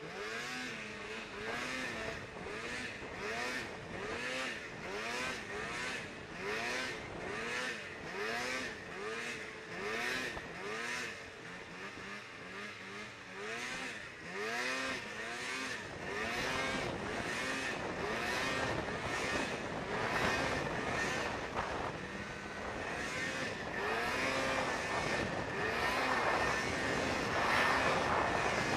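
Snowmobile engine heard from the rider's seat, its pitch rising and falling over and over, a little more than once a second, as the sled ploughs through deep powder. About halfway through it settles into a steadier, louder high-rev run.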